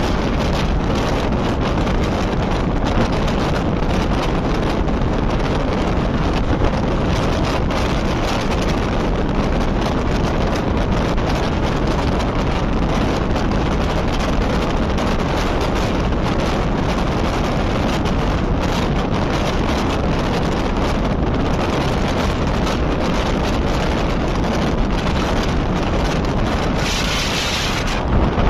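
Wind buffeting a microphone held out of a moving passenger train, over the train's steady running rumble on the track. A brief louder hiss comes near the end.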